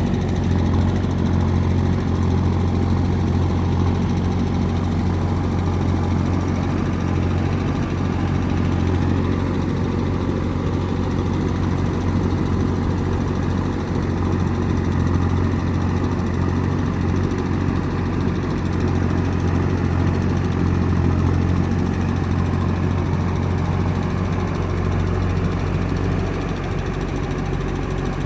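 JCB backhoe loader's diesel engine running steadily with a deep hum, easing off slightly near the end.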